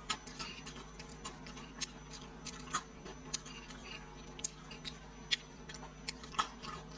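Close-up crunching of crispy deep-fried silkworm pupae being chewed: a run of irregular, sharp crackles.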